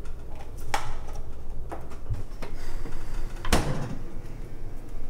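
A few light clicks and knocks, then a refrigerator door shutting with a louder thump about three and a half seconds in.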